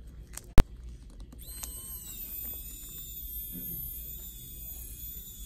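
A sharp click about half a second in. From about a second and a half, a small electric screwdriver's motor runs steadily with a thin high whine, slowly winding a battery's adhesive pull tab onto its bit.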